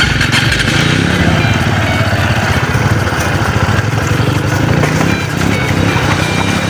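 Motorcycle engine running while being ridden, its pitch rising and falling with the throttle.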